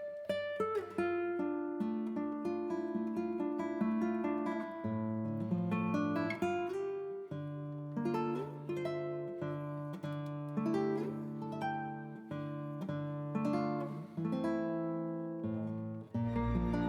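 Background music: an acoustic guitar picking a slow melody note by note. Near the end a fuller passage with a steady low bass comes in.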